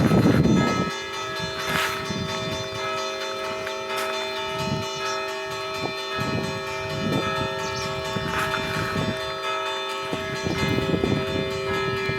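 Church bells ringing the festive Easter chiming (kimning): fresh strokes every second or two over long, steady ringing tones. A loud low rumble dies away about a second in.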